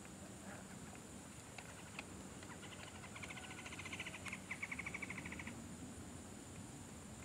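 A rapid trilled animal call in two runs, starting about two and a half seconds in, with a brief break near the middle, over a steady high-pitched drone.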